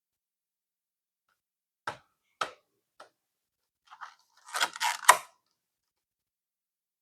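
Packaging of an art kit handled by hand: three sharp clicks about half a second apart, then a short burst of crinkling and tapping.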